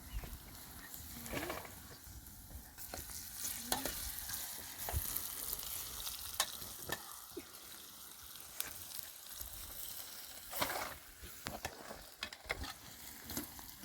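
Food frying in a pan with a steady sizzle, stirred now and then with a utensil that clicks and scrapes against the pan.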